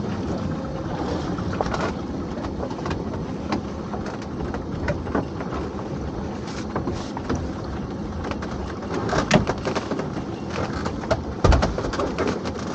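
Lobster pot being hauled up beside a small fishing boat. The pot hauler and engine hum steadily under scattered clicks of rope and dripping water, and a heavy knock comes near the end as the pot comes over the gunwale.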